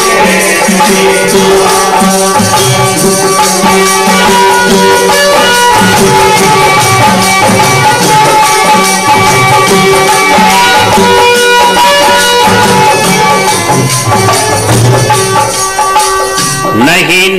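Instrumental interlude of Indian devotional bhajan music: steady held tones over fast jingling, rattling hand percussion and a low drum beat. A voice slides in near the end.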